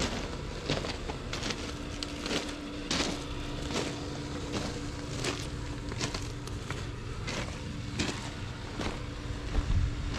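AGT YSRT14 mini skid steer's 420 cc single-cylinder gasoline engine running steadily, with a held tone from about one and a half seconds in. Irregular sharp clicks and clanks come over it, with a few low thumps near the end.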